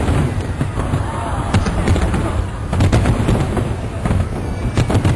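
Aerial fireworks bursting one after another: sharp bangs and deep booms over a continuous rumble of explosions.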